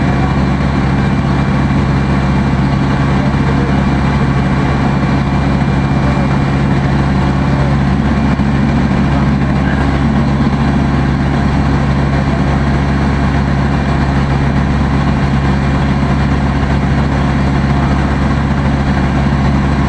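Water taxi's engine running steadily, a constant loud drone that holds its pitch.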